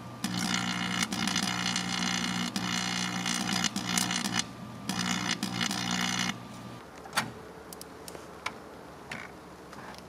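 Microwave oven running with a metal cordless drill inside: a steady electrical hum under loud crackling and buzzing from arcing inside the oven. It breaks off briefly about four and a half seconds in and stops about six seconds in. A few sharp clicks follow.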